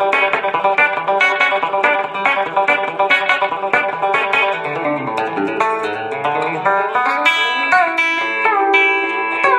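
Home-made Telecaster-style electric guitar with Lollar pickups, played through a Line 6 Helix into a Fender Twin amp, picking a fast chicken-pickin' phrase of short, snappy notes in odd-numbered groupings. Near the end the notes ring longer, with a couple of bent notes.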